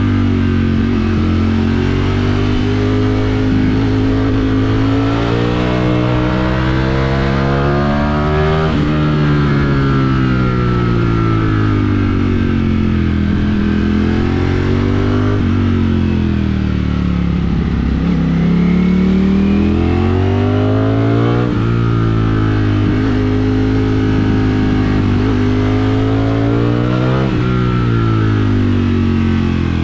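Ducati Streetfighter V4's V4 engine under way, its revs climbing and falling several times, each climb cut off by a sudden drop in pitch.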